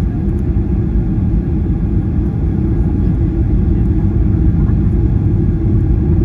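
Cabin noise inside a Boeing 737-800 on its descent to land: a steady, low rumble of the engines and the airflow, heard at a window seat beside the wing.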